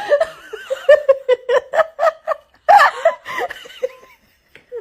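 A person laughing hard in quick, repeated pitched bursts, dying away near the end.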